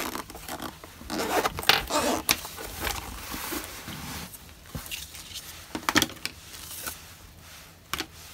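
Zipper on a fabric carrying case being pulled open, with rasping handling noise and a few sharp knocks as the case is handled.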